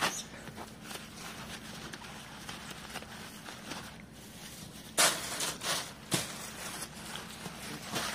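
Short rustling crunches of movement on dry straw and leaves: a sharp one at the start, then a cluster of three about five to six seconds in, over a faint steady hum.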